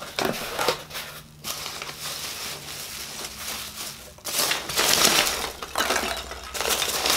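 Foam packing peanuts rustling and scrunching as hands dig through them in a cardboard box and scoop them out. The noise comes in uneven bursts and is loudest from a little past four seconds in to about six and a half.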